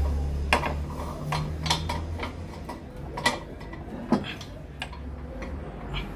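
Irregular metallic clicks and clinks of hand tools and fittings being handled on a motorcycle's exhaust header, with a low steady hum beneath.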